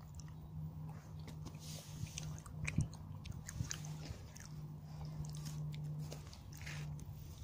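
Chewing and crunching on chocolate Easter egg, with irregular small crackles and one louder crunch a little under three seconds in, over a steady low hum.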